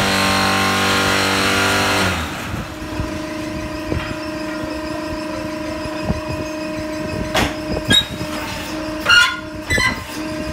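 Conmach BlockKing-12MS concrete block and interlock paver machine at work. A loud buzzing drone from its mould vibration stops sharply about two seconds in. The steady hum of its motors follows, broken by metal clanks and knocks, the loudest two coming late.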